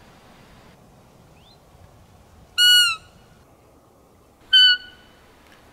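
Two short, high, whistling squeaks blown on a handheld roe deer call, imitating a doe's fiep to lure a buck in the rut: the first about two and a half seconds in and falling slightly at its end, the second near the end.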